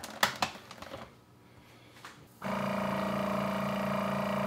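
Countertop vacuum sealer: a few clicks as its lid is pressed shut over the bag, then, about two and a half seconds in, the machine starts a steady electric hum as it runs its cycle to seal the plastic bag.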